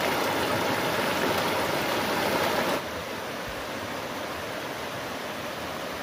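A shallow rocky stream rushing over boulders, loud and close at first. About three seconds in it drops suddenly to a quieter, steady rush of water.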